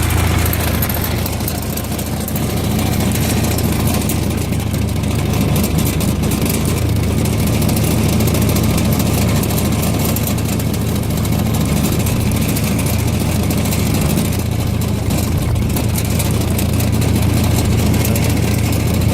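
Kubota K008 mini excavator's diesel engine running steadily at idle, shortly after a glow-plug start.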